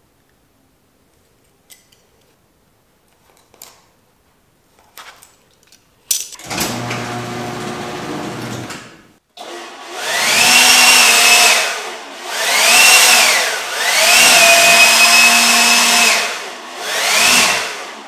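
Cordless leaf blower switched on about six seconds in, running steadily for a few seconds, then cut and run up again in four surges, its whine rising and falling with each one.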